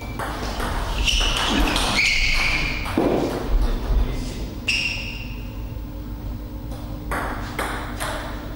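Table tennis ball clicking off bats and table in a rally, then ringing pings as the ball bounces away once the point is over, with a brief shout from a player. Near the end come a few single bounces of the ball on the table before a serve.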